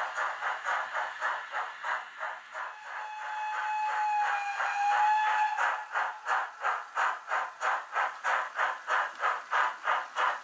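Märklin H0 model steam locomotive's sound module playing rhythmic steam chuffing, about four beats a second. About three seconds in, a steam whistle sounds for some two and a half seconds while the chuffing eases, then the chuffing picks up again louder as the locomotive passes.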